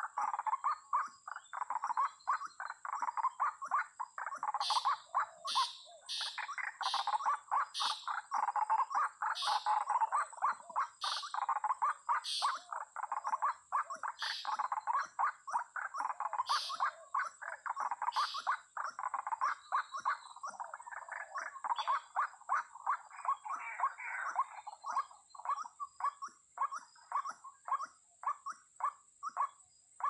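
White-breasted waterhens (ruak-ruak) calling: a fast, unbroken run of harsh repeated notes. Sharper high notes come about once a second for a stretch in the middle, and the calling thins somewhat in the last third.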